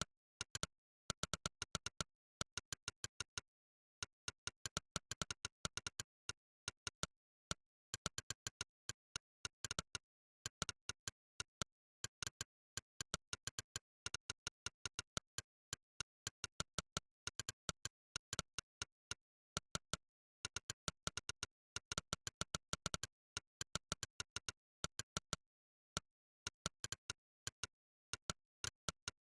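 Monkeytype's synthetic 'click' keystroke sound, one identical sharp click per key press, coming in fast irregular runs of typing with short pauses between them and dead silence in the gaps.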